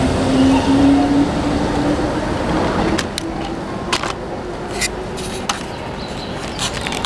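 Keihan 8000 series electric train pulling away, its motor whine rising slowly in pitch and then fading as the train leaves. After that, a steady background hum with a few short sharp clicks.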